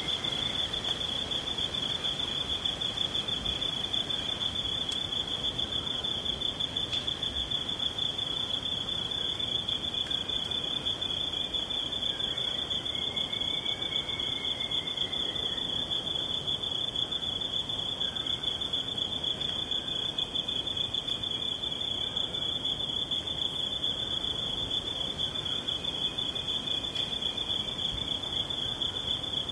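Rainforest insect chorus: crickets trilling in one steady, unbroken high-pitched tone over a soft background hiss, with a few faint calls that rise and fall.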